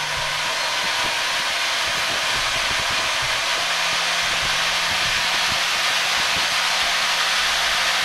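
Small electric motor spinning a 3D-printed propeller in reverse near full speed: a steady rush of air with a faint low hum under it, growing slightly louder as the throttle is stepped up.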